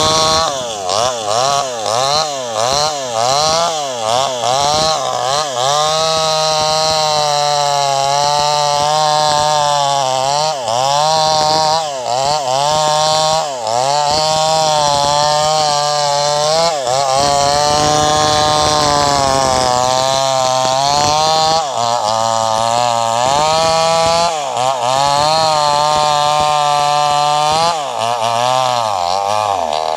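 Two-stroke chainsaw running at high revs and cutting into wood, its engine pitch dipping again and again as the chain bogs in the cut and climbing back as it frees up.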